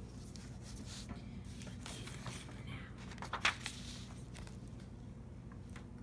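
Paper picture-book pages rustling as a book is flipped and handled on a wooden table, with scattered light ticks and one sharper knock about three and a half seconds in, over a low steady hum.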